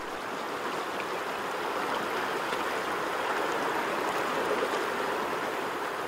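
Shallow seawater washing and lapping over a rocky shore, a steady rush of water with no distinct splashes standing out.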